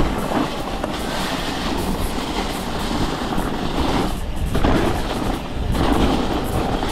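Mountain bike ridden over frozen, hard-packed ground: tyres rumbling and the bike rattling steadily over the bumps, with wind noise on the camera's microphone.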